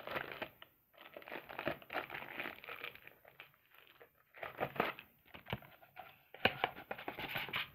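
Clear plastic wrapping crinkling in irregular bursts as it is pulled off a rolled-up poster, loudest near the end.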